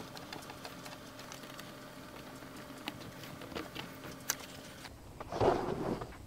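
A hand screwdriver turning a screw that fastens an anchoring hook to a plastic blade guard: a quick, steady run of small clicks and creaks. About five seconds in it stops, and a louder, brief bump of the plastic guard being handled follows.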